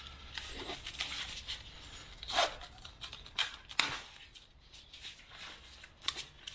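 Plastic packaging rustling and crinkling as wrapped parts are pulled out of a cardboard box, with a few sharper crackles along the way.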